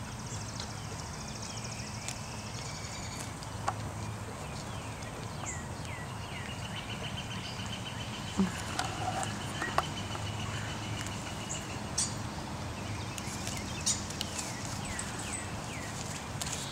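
A pony grazing, tearing off grass and dandelions and chewing, with a few sharp snaps. Small birds sing over it, with a long rapid trill in the middle.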